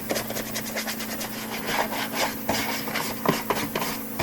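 A socket ratchet clicking in quick, uneven runs as bolts on a Troy-Bilt mower are worked loose to take off the carburetor.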